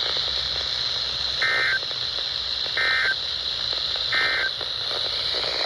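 NOAA Weather Radio sending the Emergency Alert System end-of-message code: three short bursts of two-tone digital data, evenly spaced, over steady radio hiss. They signal that the severe weather statement has ended.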